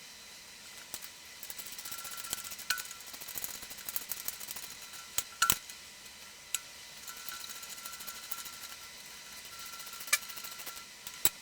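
Hand ratchet wrench clicking in quick runs as the bolts holding a bracket to a lawn tractor transaxle are run down, with a few sharp metal knocks.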